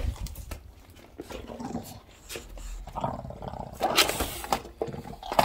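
English bulldog chewing and gnawing on a wooden skateboard deck, with irregular clicks and scrapes of teeth on the board and the dog's own grunting breaths, busiest about three to four and a half seconds in.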